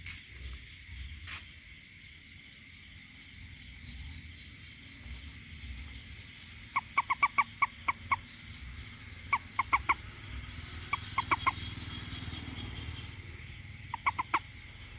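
Toad calling in short runs of four to seven quick, clipped croaking notes, a bunch every couple of seconds, over a steady low rumble.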